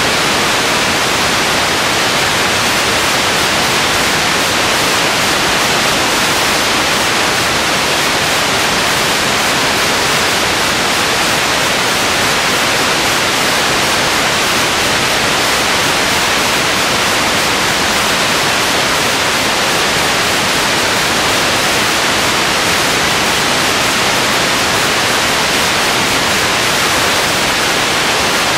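Loud, steady static hiss with no other sound in it: the noise of an old film transfer with no usable soundtrack.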